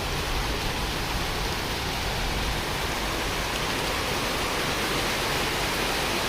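Storm wind blowing hard and steadily, buffeting the microphone with a low, uneven rumble under a constant rushing hiss.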